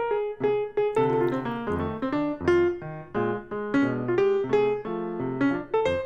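Background piano music: a steady run of struck notes and chords, each ringing briefly and fading, several to the second.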